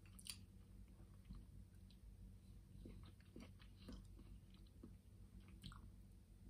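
Faint sounds of eating noodles: a fork clinking and scraping in a glass bowl and soft chewing, scattered light clicks over a low steady room hum.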